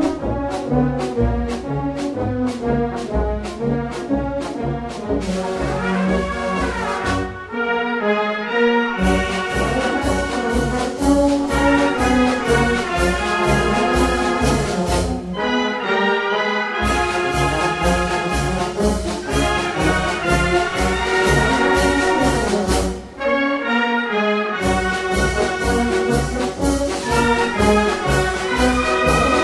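A brass band playing a march, brass carrying the tune over a steady bass-drum beat of about two beats a second. The drum beat drops out briefly three times, about a third, half and three-quarters of the way through.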